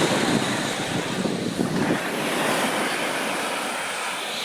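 Ocean surf washing onto the shore as a steady rush of breaking waves.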